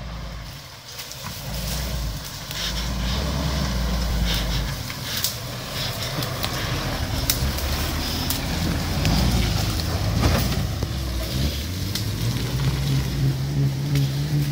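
Mitsubishi L200 pickup's engine running under load as it crawls through forest undergrowth past the camera and away. Scattered sharp cracks and clicks come through over the engine, whose note steadies and grows clearer near the end.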